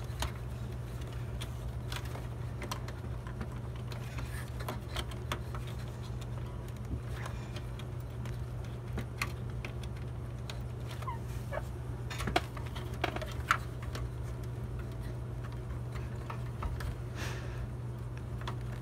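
Scattered light clicks and taps of hands working a part free inside an open metal desktop computer case, with a few sharper knocks past the middle, over a steady low hum.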